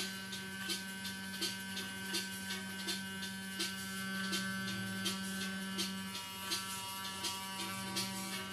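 Corded electric dog clippers running with a steady buzzing hum as they trim a dog's coat, over a regular beat that ticks about every three-quarters of a second.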